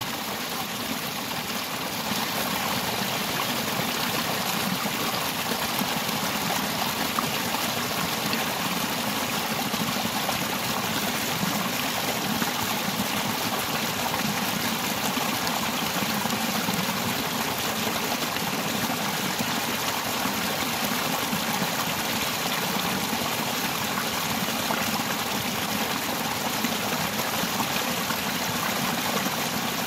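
A small rocky stream splashing down a short cascade between boulders: a steady sound of running, splashing water, a little quieter for the first two seconds.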